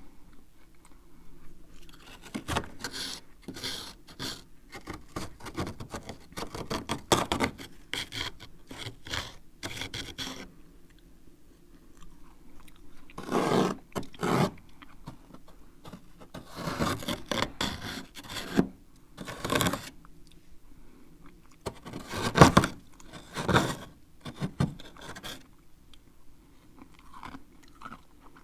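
Close-up scraping of freezer frost with a spoon in short, irregular strokes, mixed with crunching of the loosened ice and snow. The sound comes in clusters with brief pauses.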